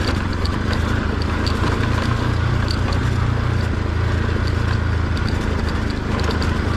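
Motorcycle running steadily on a rough gravel track, a low drone with scattered small ticks and rattles over it.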